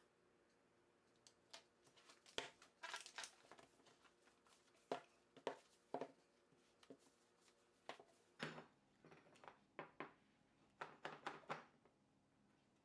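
A stack of folded paper sheets being handled and tapped on its edge against a cutting mat to square it up: a run of irregular light taps and paper rustles, which pause briefly and then start again.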